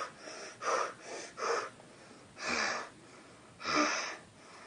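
A person's voice making a run of loud breathy gasps and huffs, about six in a row, the later ones longer and heavier, as in a monster transformation.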